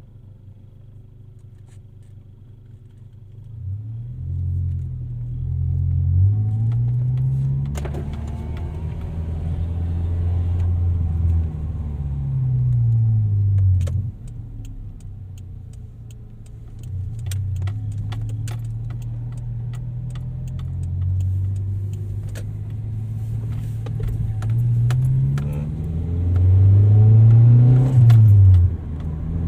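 Toyota Celica engine on a drive, revs climbing and then dropping as it is shifted through the gears several times, loudest near the end. Scattered sharp clicks ride over the engine.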